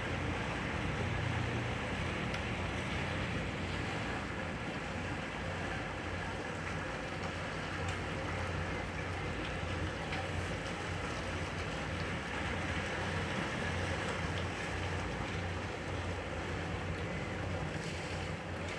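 Boat engine running steadily as a low hum, under a steady hiss of wind and water.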